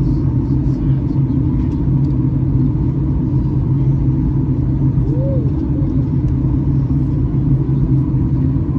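Steady cabin noise inside a Boeing 737 MAX 8 in flight: a low, even drone from its CFM LEAP-1B engines and the airflow over the fuselage, with a strong low hum underneath.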